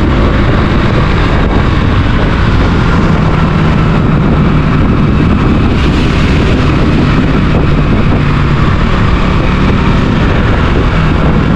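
Motorcycle engine running steadily on the move, a low hum under a loud, even rush of noise.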